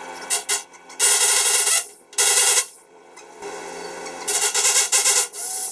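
Electric drill boring holes for the handrail fixing, in several grinding bursts, the longest about a second.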